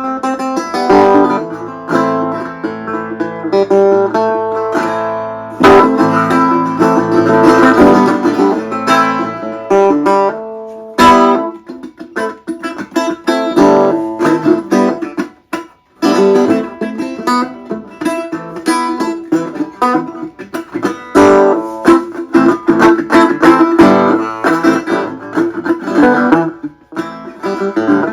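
Dobro resonator guitar played solo: plucked notes and ringing chords, with a brief pause about sixteen seconds in.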